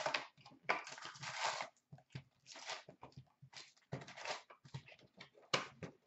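Cardboard box of hockey cards being opened and its foil-wrapped packs pulled out and stacked: a run of short, irregular rustles and scrapes of card and foil.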